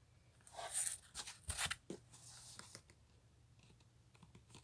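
Cardboard being handled, rustling and scraping in a run of short bursts over the first three seconds, with one more brief rustle at the very end.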